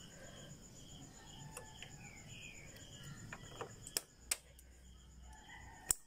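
Steady cricket chirping, with three sharp metal clicks in the second half from pliers working the shift-linkage rod end on a motorcycle's gear-shift lever.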